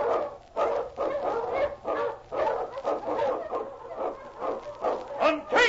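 A team of husky sled dogs barking and yelping excitedly, many short overlapping barks several times a second, a radio dog-team sound effect.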